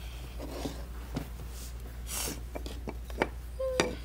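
Wooden toy train track pieces and wooden support blocks knocking together as they are handled and fitted: a handful of light, separate clicks and knocks, with a short rustle about two seconds in.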